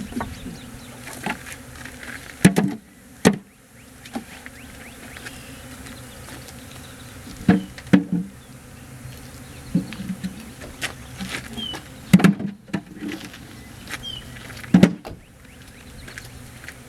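Honey bees buzzing steadily around the hive. Several sharp knocks are scattered through it.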